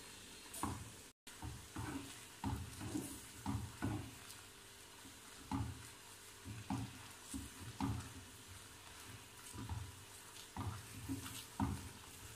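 Silicone spatula stirring thick mango purée in a steel frying pan: soft scraping strokes about two a second, with a faint sizzle of the cooking purée. The sound drops out briefly about a second in.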